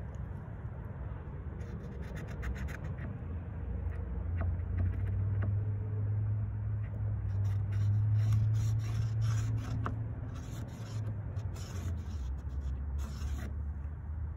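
Scratchy strokes of a marking tool drawn along plywood, tracing the edge of a sheet-metal plate: a few strokes early, then a denser run through the second half. Underneath, a low rumble swells to its loudest about halfway through and then eases off.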